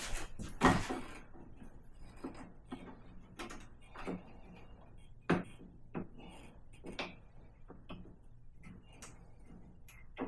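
Scattered knocks and clicks of hands working inside a refrigerator compartment, connecting the ice maker's water line. The loudest knock comes just under a second in, and lighter taps follow every second or so.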